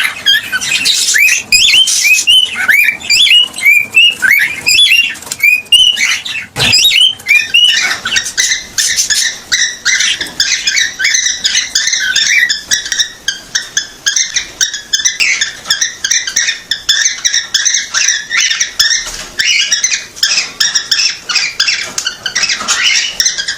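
Cockatiel calling: repeated rising chirps, about two a second, then a single knock, and from about eight seconds in a fast, dense run of high chattering notes.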